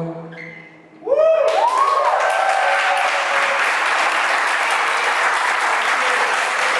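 The last of the music fades out, and about a second in an audience breaks into applause, with a few whoops of cheering at first, then steady clapping.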